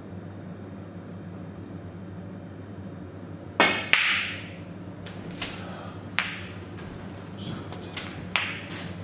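Snooker cue tip striking the cue ball, then, about a third of a second later, the click of the cue ball hitting the red, followed by several lighter knocks and clicks of the balls, over a steady low hum.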